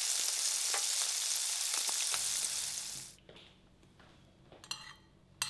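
Vegetables frying in a lidded pan on the stove, a steady sizzling hiss that fades out about three seconds in. Near the end come two light ringing clinks of tableware.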